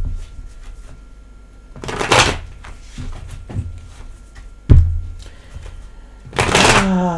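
Tarot cards being handled on a table: two dull thumps and two brushing swishes. The second swish, near the end, runs into a short falling hum of voice.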